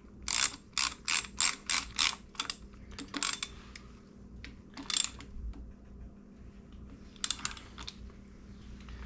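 Hand ratchet wrench clicking as the shifter lever's pinch bolt on a Harley Sportster is tightened. There is a quick run of about eight clicks in the first two and a half seconds, then a few more spaced out.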